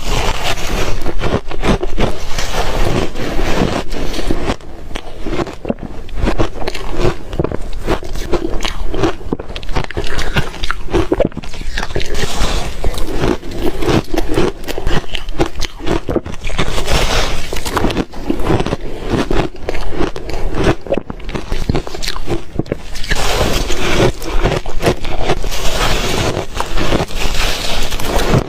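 A person biting and chewing reshaved refrigerator ice close to the microphone: a steady run of dense, irregular crunching and crackling, with louder stretches of crunching about 12, 17 and 23 to 27 seconds in.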